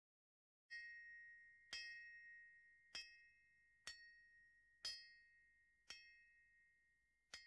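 A small bell-like metal chime struck seven times, about once a second. Each strike rings on in a clear high tone that dies away between strikes.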